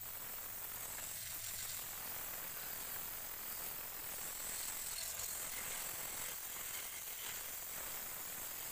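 Sandpaper held against a wooden bowl spinning on a lathe, giving a steady hiss.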